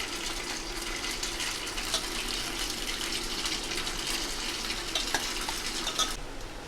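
Pieces of idli frying in hot coconut oil, sizzling and crackling steadily with a few sharp ticks. The sizzle cuts off suddenly near the end.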